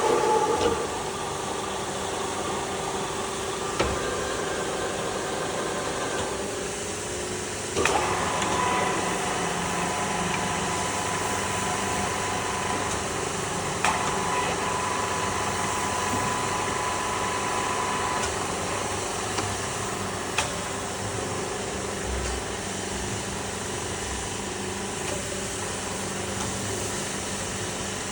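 2N55 radial drilling machine running: a steady motor and gearbox hum, broken by a few sharp clicks, with a higher whine lasting about ten seconds in the middle.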